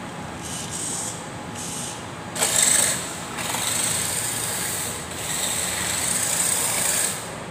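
Radio-controlled drift car running and sliding across a tiled floor: a high motor whine over a hiss. It surges sharply about two and a half seconds in, then runs on at full throttle with a short dip midway.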